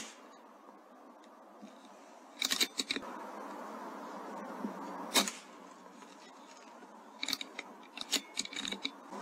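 .22 Airmaks Krait L air rifle: one sharp shot about five seconds in. Around it come quick runs of metallic clicks, typical of the rifle's action being cycled and reloaded, about two and a half seconds in and again in the last two seconds.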